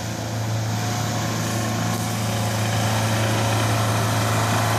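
Santana Land Rover 4x4's engine running steadily under load as it wades through deep muddy water, with water splashing around the wheels; the engine note grows a little louder over the seconds.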